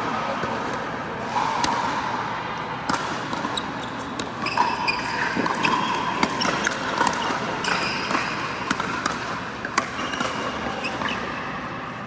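Indoor pickleball rally: repeated sharp pops of paddles striking the plastic ball, with ball bounces on the court floor, coming at an irregular pace.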